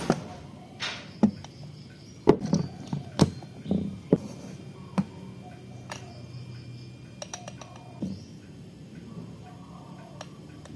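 Clicks and knocks of a stainless espresso portafilter and coffee tools being handled and set down. Several sharp knocks come in the first half, then a few light clicks a little past the middle.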